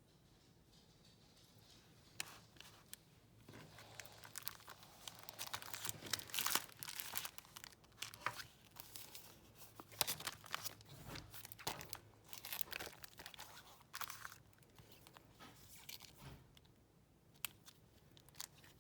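Packaging being torn open and crinkled by hand: irregular crisp tearing and crackling that starts about two seconds in and thins out near the end.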